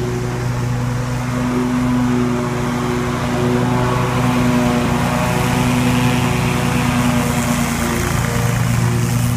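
Scag Tiger Cat II zero-turn riding mower running, its engine giving a loud, steady drone with a slightly wavering pitch.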